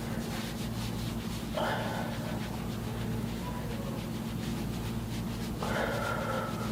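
Steady low hum of a motorised vibration massager running, with two short breathy sounds, one about two seconds in and one near the end.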